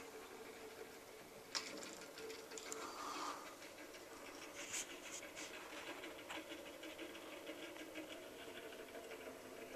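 Faint handling noise from a handheld camcorder being moved onto a telescope eyepiece. A sharp click comes about a second and a half in, followed by a few lighter clicks and rustles, all over a low steady hum.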